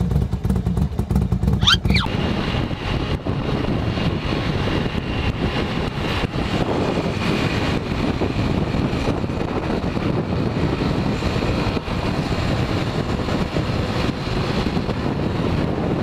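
Yamaha XTZ 150 Crosser's single-cylinder engine running at cruising speed, mixed with heavy wind noise buffeting the microphone in strong crosswinds. The first two seconds hold a short intro sound ending in a quick sweeping tone.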